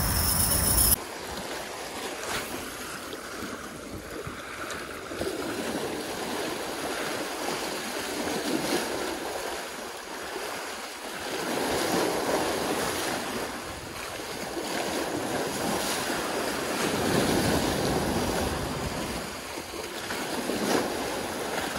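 Sea waves washing and breaking over rocks, surging louder twice, with wind buffeting the microphone. A louder rush of noise in the first second cuts off abruptly.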